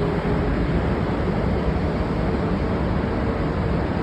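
Semi-truck running: a steady low rumble with a hiss over it and a faint hum, without change.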